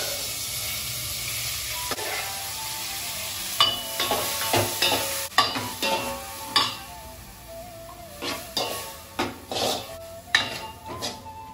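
Food sizzling in a brass pan on a gas stove, then a metal spoon stirring vegetables and clinking and scraping against the brass pan many times.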